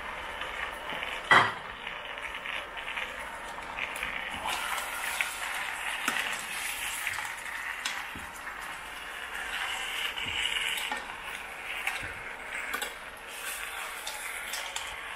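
Shrimp, mussels and corn sizzling in sauce in a frying pan as they are tossed with a metal spoon and a spatula, the utensils scraping and knocking against the pan. A sharp clank about a second and a half in is the loudest sound.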